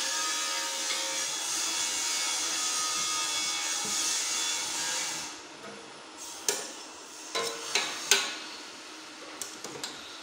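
A steady hiss for the first half, then a few sharp metallic clinks of steel pieces knocked against a welded square-tube steel frame, the loudest about eight seconds in, with a few lighter ticks near the end.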